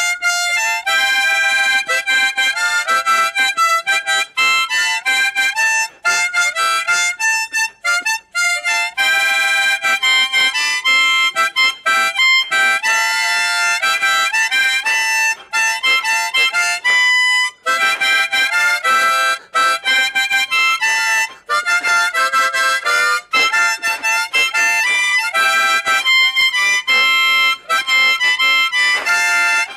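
Solo harmonica, cupped in both hands, playing a quick melody of short notes with brief breaks between phrases and no accompaniment.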